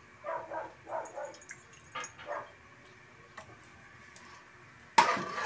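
A dog barking a few short times in the background, then a sudden loud knock near the end.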